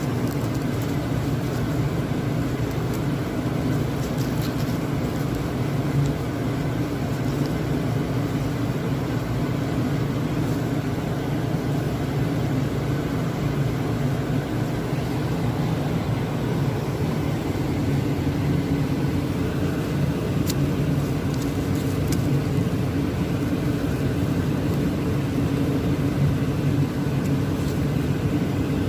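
Ssangmun garlic sorting machine running steadily with a constant motor hum, with a few faint clicks.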